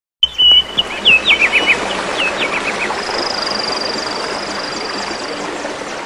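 Birds chirping and whistling over the steady rush of a shallow stream running over rocks, with a string of quick falling notes early on and one long high trill in the middle.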